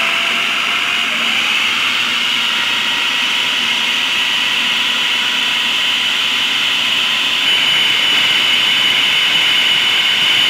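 Food processor motor running at speed, chopping raw boneless chicken with onion, herbs and spices into a fine kebab paste. A steady, loud whir with a high whine, which gets slightly louder about three-quarters of the way through.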